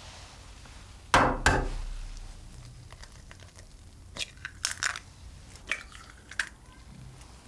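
Raw eggs being cracked over a glass mixing bowl: two sharp knocks of shell on the bowl about a second in, then crisp crackling and clicks of shell as the eggs are broken open and pulled apart.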